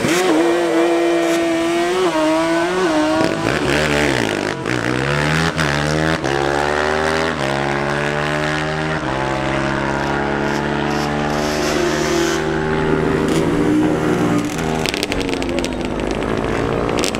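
Drag-racing ATV engine running at full throttle off the line. Its pitch climbs, then drops sharply about four seconds in and climbs again several times as it goes up through the gears.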